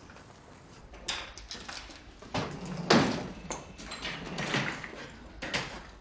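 Keys clicking in a door lock, then the front door being opened and shut, with a run of knocks and clatter; the loudest knock comes about three seconds in.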